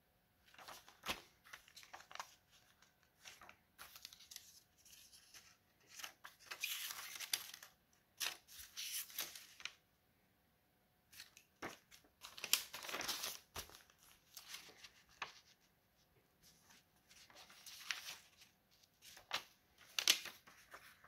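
Paper notebook pages and glued-in paper flaps being lifted and turned by hand: irregular rustling and crinkling swishes, some louder than others, with short pauses between them.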